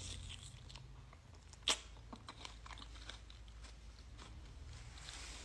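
Biting into and chewing pieces of jackfruit flesh: scattered small mouth clicks, with one sharp click a little under two seconds in and a brief hiss near the end.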